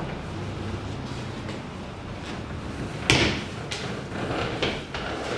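A sharp knock about three seconds in, followed by a few lighter knocks, over a low steady hum.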